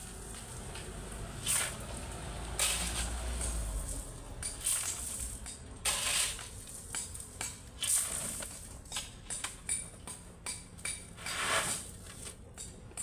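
A steel shovel scraping into a pile of crushed gravel and tossing it, the stones rattling, in several scoops a second or two apart. Near the end come quicker, shorter clicks and clinks of stones.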